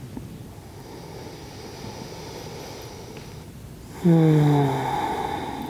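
Soft breathing, then about four seconds in a long voiced sigh that falls in pitch and trails off into an exhale.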